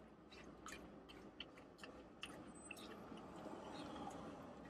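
Faint close-up chewing, with scattered small clicks of a fork picking at food in a takeout bowl. A vehicle outside faintly grows louder near the end.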